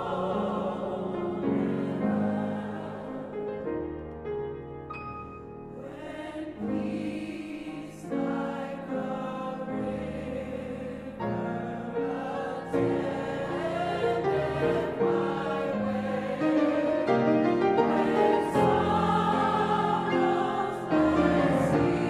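Mixed chorus singing in harmony with piano accompaniment. The singing softens a few seconds in, then builds louder toward the end.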